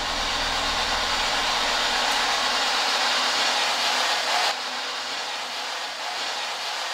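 A steady hiss with no distinct events, with a faint low hum under it at first; the hiss drops slightly in level about four and a half seconds in.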